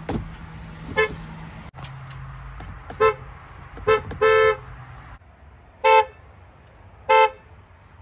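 Volkswagen car horns sounding a series of short toots, about six in all, one held a little longer than the rest, from a few different VW cars in turn.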